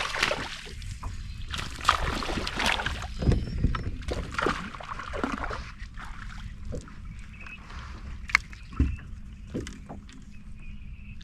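Water splashing and sloshing against a fishing boat's hull, with a few sharp knocks, over a low steady hum.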